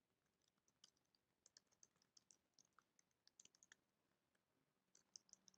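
Faint typing on a computer keyboard: short key clicks in several quick bursts with brief pauses between them.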